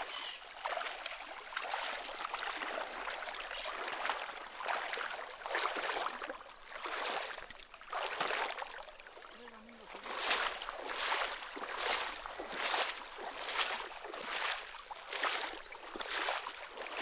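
People wading through shallow lagoon water: repeated swishing splashes, about one per stride, growing more frequent in the second half.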